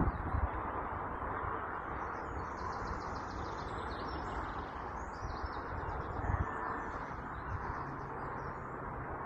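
Small birds chirping in short bursts over a steady outdoor hum, with a faint low drone from an Irish Rail Class 22000 diesel railcar pulling away into the distance. A sharp knock comes right at the start.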